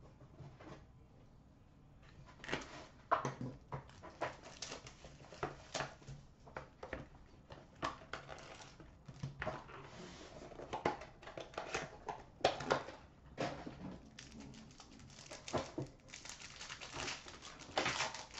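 An Upper Deck Ultimate hockey card box being opened by hand and the pack inside unwrapped: an irregular run of scraping, tapping and crinkling of cardboard and wrapper, busiest near the end.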